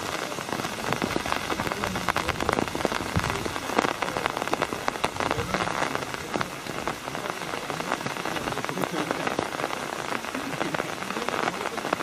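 Steady rain, a dense patter of many small drop ticks over a continuous hiss.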